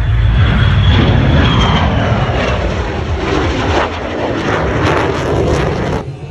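Airplane flying past low at an airshow, its engine a loud, heavy rumble with a high whine that slowly falls in pitch as it goes by; the sound cuts off abruptly near the end.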